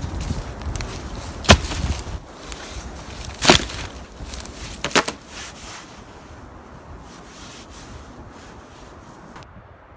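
Wood being chopped with a blade: three hard strikes about two seconds apart, with lighter knocks between, then quieter handling.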